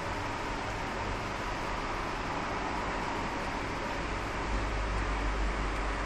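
Steady background hiss with a faint steady tone and a low rumble that grows louder about four and a half seconds in.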